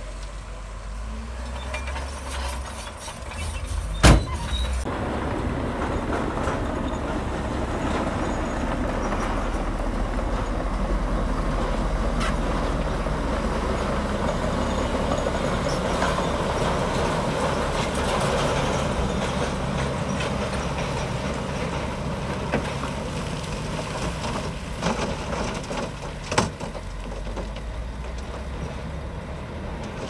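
Komatsu D65P crawler bulldozer working, its diesel engine running with a steady low rumble under a grinding noise that grows louder after about six seconds. A sharp knock comes about four seconds in and another near the end.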